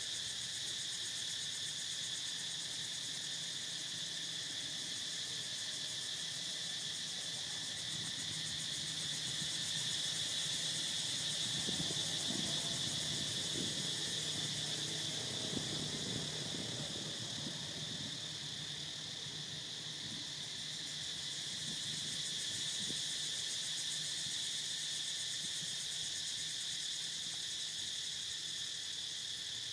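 Steady chorus of insects, a constant high-pitched drone, with a soft low rustling partway through.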